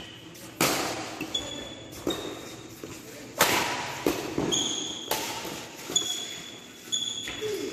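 Badminton rally: sharp strikes of rackets on the shuttlecock, about one every second and a half, echoing under the court roof. Between the strikes come short high squeaks of shoes on the court.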